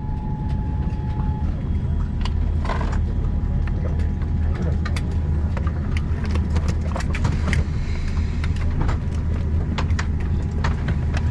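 Steady low hum inside the cabin of a parked Boeing 787-9 airliner at the gate, with scattered clicks and knocks from around the cabin. A faint steady tone sounds for about the first second.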